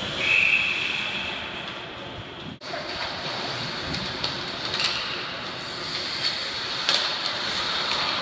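A referee's whistle blown in one long steady blast lasting nearly two seconds. After a sudden cut, the hum of the ice rink with scattered sharp clicks.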